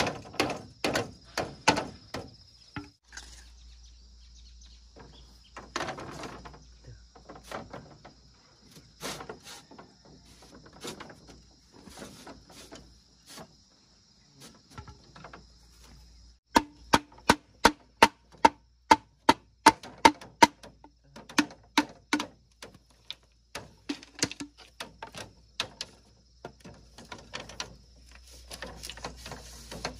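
Bamboo being chopped and knocked with a hatchet blade: runs of sharp wooden strikes. In the middle comes a fast series of loud, ringing blows, about three a second for several seconds.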